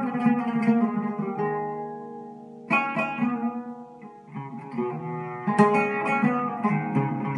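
Oud being plucked in an Iranian improvisation in Bayat Esfahan. Quick plucked notes give way to notes left to ring and fade. A single strong stroke near three seconds dies away, then quick plucking picks up again from about four and a half seconds.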